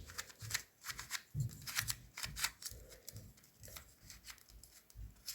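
A magnetic YJ MGC Square-1 puzzle being turned by hand: irregular plastic clicks and clacks as its layers are turned and the slash moves snap into place.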